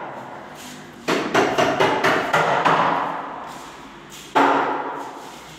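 A quick run of about seven sharp knocks, then one heavy knock about four seconds in that rings on.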